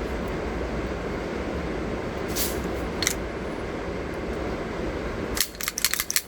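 Steady rushing background noise, then a quick run of sharp clicks and rattles about five and a half seconds in, like a pistol being handled.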